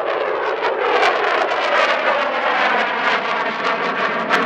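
F-16 fighter's single jet engine roaring in a low pass overhead: a steady, loud rush with a crackling edge. It cuts off abruptly right at the end.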